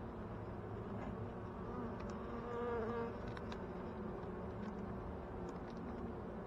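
Honeybees buzzing around a hive in a steady drone. About halfway through, one bee passes close, louder, its pitch bending up and down.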